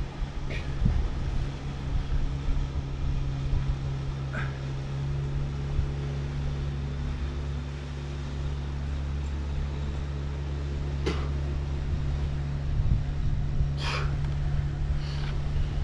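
A steady engine drone, heard with wind on the microphone, and a few short sharp sounds standing out over it.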